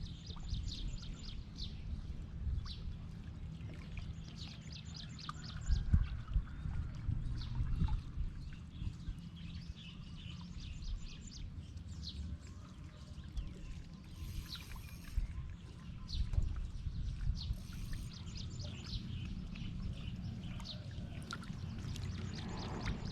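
Small birds chirping over and over in short, high, falling notes, over a steady low rumble.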